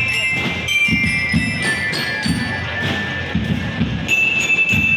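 School marching band (banda rítmica) playing: metal bell lyres ring out a melody in high, bell-like notes over low drum beats.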